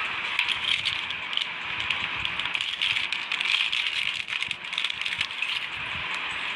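Hands handling a jewellery set and its plastic packaging: a dense, continuous run of small crackles and clicks.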